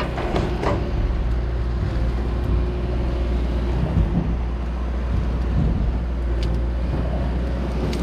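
Heavy engine running steadily with a low hum, with a few light knocks over it.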